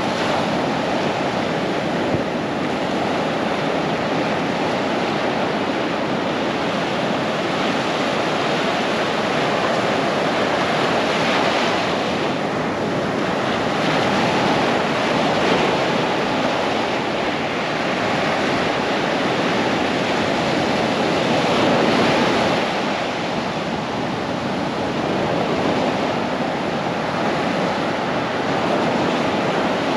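Ocean surf breaking and washing up a sandy beach: a steady rushing wash that swells and eases every few seconds as each wave comes in.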